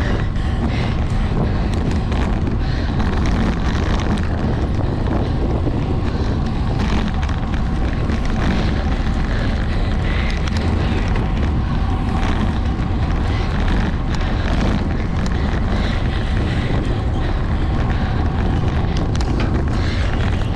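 Wind rushing over the microphone of a camera on a racing bicycle at speed: a steady, loud, low rumble.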